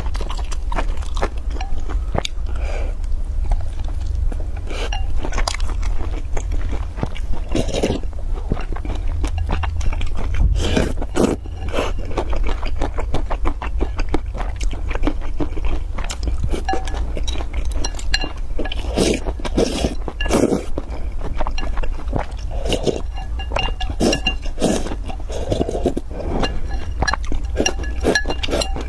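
Close-miked eating: biting and chewing a pan-fried bun dipped in spicy sauce, with many sharp mouth clicks and crunchy, wet chewing, over a steady low hum.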